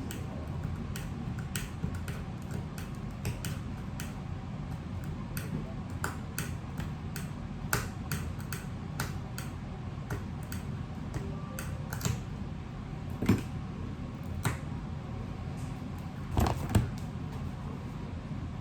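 Small repair tools and parts clicking and tapping on an iPhone 6 being opened for a battery replacement: irregular light clicks, with a few louder ones in the second half, over a steady low hum.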